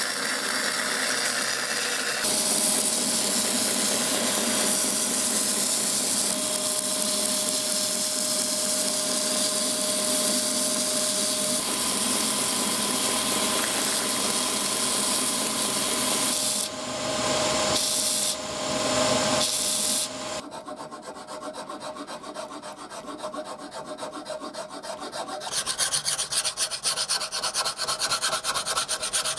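Continuous abrasive rubbing and rasping, a file or sandpaper being worked back and forth over a workpiece, in several stretches that change in tone and loudness.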